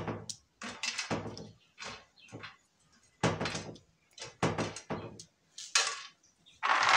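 Shelled groundnuts (peanuts) dropped by hand onto a metal tray, rattling in a series of short, irregular bursts with brief pauses between them.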